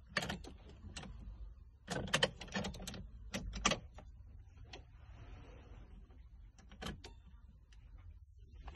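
Irregular sharp clicks and knocks of hands handling plastic parts in a car cab, some in quick clusters of two or three, over a faint steady low hum.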